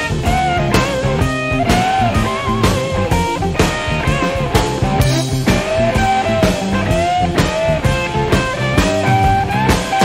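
Rock music soundtrack: a lead electric guitar plays bent, sliding notes over a steady drum beat and bass.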